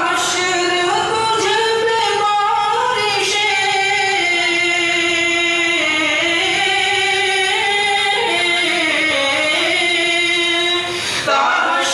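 Singing of an alvidai tarana, a madrasa farewell anthem: a slow melody of long held notes, with a brief pause near the end.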